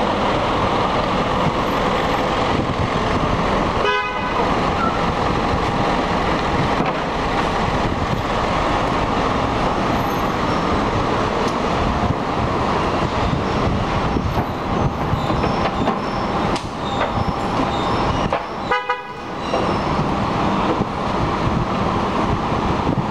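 City street traffic noise, a steady din with a vehicle horn tooting.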